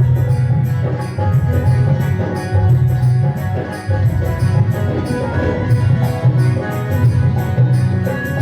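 Instrumental interlude of a Hindi devotional bhajan. Held melody lines play over steady hand-drum beats and regular jingling percussion.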